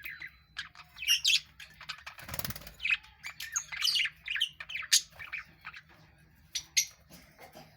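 A colony of budgerigars chirping and squawking in quick, overlapping short calls, busiest in the first half and thinning out later. A brief rustling burst about two seconds in.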